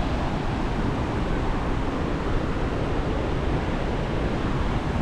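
High Force waterfall on the River Tees: a steady rush of falling water.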